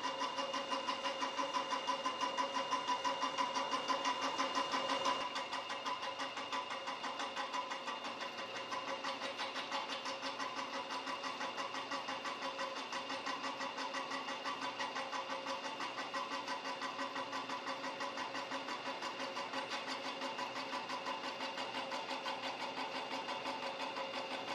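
Cincinnati vertical milling machine running, spindle turning a hand tap in the drill chuck for power tapping: a steady machine hum and whine with a fast, even pulse, a little quieter from about five seconds in.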